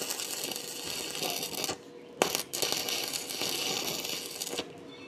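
Stick (arc) welding: the electrode crackling and sizzling as lorry hinges are tack-welded onto a mild-steel well-door frame. It runs in two stretches of about two seconds, with a short break a little under halfway through.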